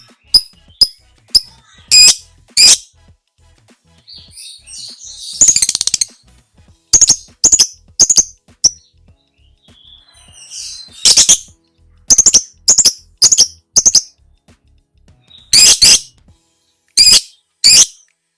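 Lovebird calling: sharp, high-pitched chirps singly and in pairs, with fast chattering runs about five seconds in and about eleven seconds in.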